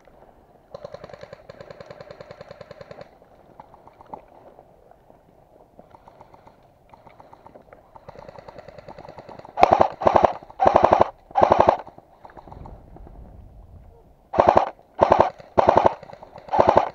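Airsoft guns firing full-auto bursts of fast, even shots: a quieter burst about two seconds long near the start, then four short, loud bursts a little past halfway and four more near the end.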